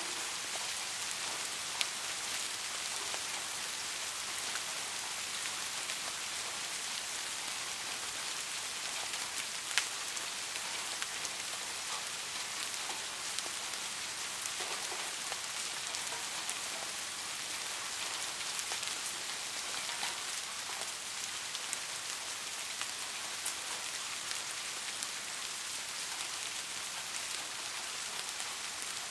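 Steady rain falling: a dense, even hiss with scattered sharp drop ticks, a couple of them louder about two and ten seconds in.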